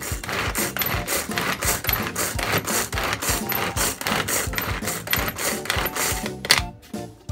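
Pull-cord manual food chopper being worked: the cord is pulled again and again, spinning the blades in the plastic bowl as they chop onion and garlic, in a steady run of whirring, rattling strokes about three a second.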